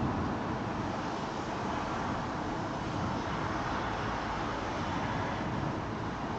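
Steady rushing noise of heavy rain in a thunderstorm, with no thunderclap.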